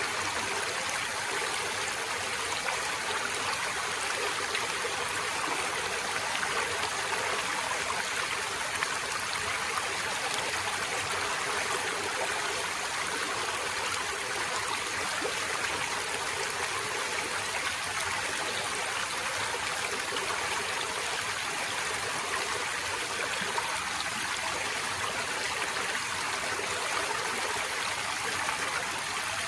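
Forest stream flowing over rocks: a steady, even rush of water.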